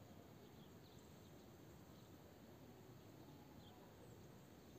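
Near silence: faint outdoor background with a few faint, short, high chirps.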